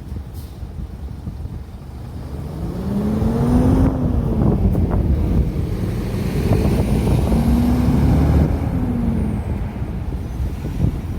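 Road traffic passing: two motor vehicles go by one after the other over a steady low rumble, each engine tone rising and then falling away.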